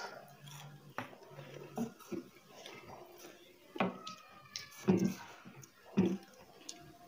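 Close-up mouth sounds of eating goat meat and soft millet dhido by hand: chewing with a handful of short wet smacks spread through, and a few brief murmured words between bites.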